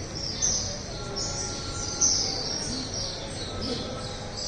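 Birds chirping: a quick run of short, high, falling chirps over a low background din, louder about half a second in and again about two seconds in.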